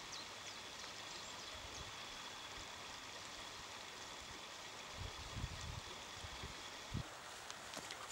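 Faint, steady rush of flowing water, with a few faint high chirps at the start and a few soft low thuds around five and seven seconds in.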